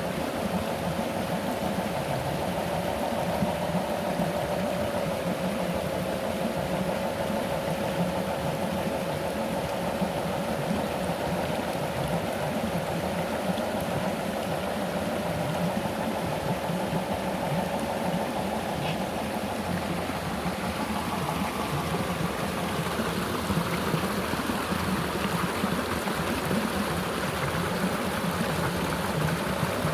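Small electric motor and gearbox of an RC rock crawler whining steadily as it creeps along, over the constant rush of flowing river water. About two-thirds of the way through the whine fades and the water grows louder.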